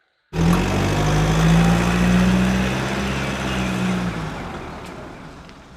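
A car engine sound running with a steady low hum, starting abruptly and fading away over the last couple of seconds.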